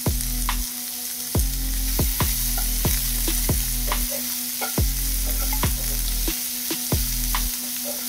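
Chopped onion, capsicum, ginger and garlic with chilli powder sizzling in hot oil in a kadai as they are stir-fried. A spatula strikes and scrapes the pan with sharp clicks about twice a second over the steady sizzle.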